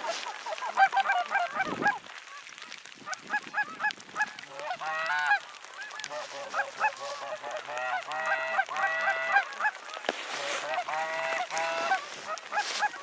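Canada goose honks and clucks, many short calls overlapping in a busy, continuous chorus. A few short rushes of noise cut across it near the start, around ten seconds in and near the end.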